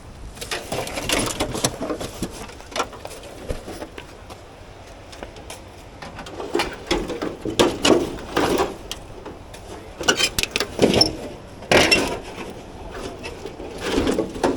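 Irregular knocks and clatter of debris being picked up and tossed, with several louder hits in the second half.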